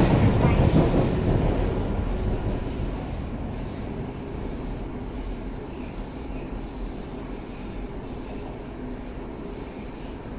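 Osaka Metro 30000 series subway train with Mitsubishi IGBT inverters running between stations, heard from inside the car: a rumble of wheels and running gear that grows quieter over the first two or three seconds, then stays steady.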